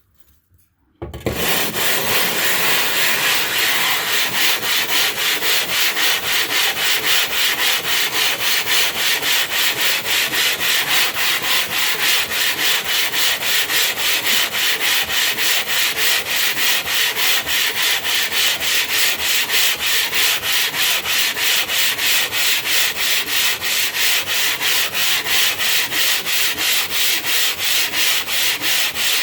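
Piece of limestone rubbed hard back and forth in fast, even strokes, a gritty scraping as it is ground down into a sharpening stone. It starts about a second in.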